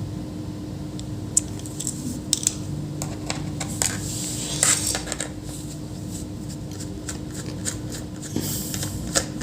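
Small clicks, taps and brief scrapes of a laptop and tools being handled on a work surface, with a louder scratchy rustle about halfway through and again near the end.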